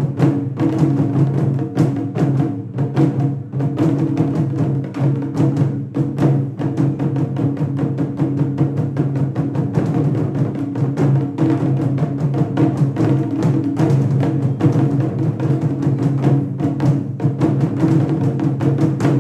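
Taiko drum ensemble playing a continuous, dense run of loud strokes that stops abruptly near the end.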